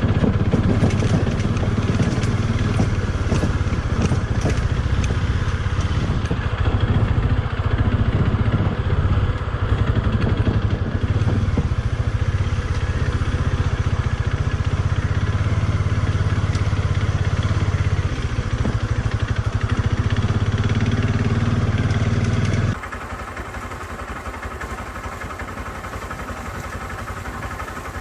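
Motorcycle engine running under way on a rough dirt track, with rattle from the ride. Near the end the sound abruptly becomes quieter.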